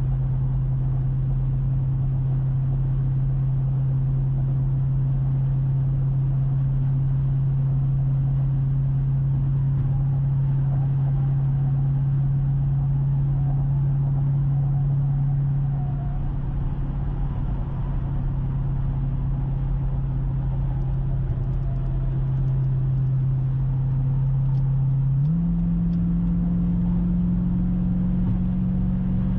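Exhaust drone inside the cabin of a 2019 Dodge Durango SRT, from its 392 HEMI V8 through an MRT cat-back exhaust, cruising on the freeway at around 2000 rpm: a steady low hum over tyre and road noise. About 25 seconds in, the drone jumps suddenly to a higher pitch as the revs rise and the truck speeds up.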